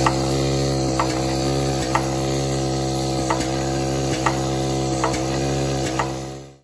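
Volumetric pot seeder and conveyor running with a steady mechanical hum, and a sharp click about once a second as the seeder doses each pot. The sound fades out near the end.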